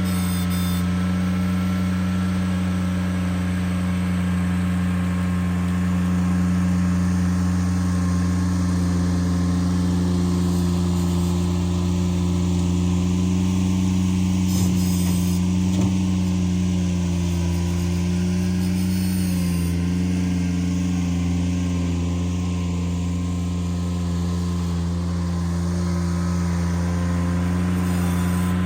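Ventrac compact tractor's engine running steadily at a constant throttle, its pitch falling as it is throttled down at the very end.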